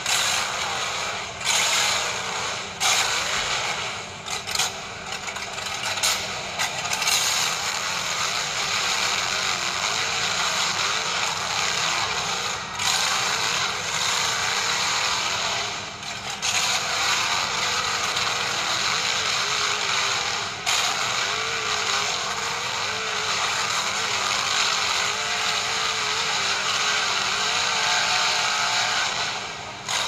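HSP Pangolin RC rock crawler's electric motor and geared drivetrain running steadily as it crawls through wet mud and over rocks, with mechanical grinding and clicking from the gears. The whine wavers in pitch in the second half.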